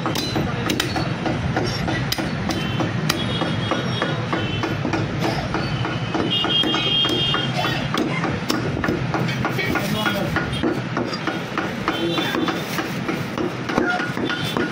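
Busy butcher-shop din: indistinct voices and a steady background clamour, broken by frequent irregular sharp knocks of a cleaver chopping on a wooden block.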